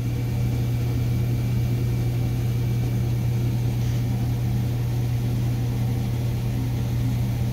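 A machine running with a steady low hum that does not change.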